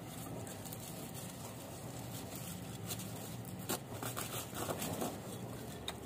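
Leaves and stems of a potted Aglaonema Red Siam rustling and crackling as they are handled and parted by hand, with a cluster of small crackles a little past halfway, over steady low background noise.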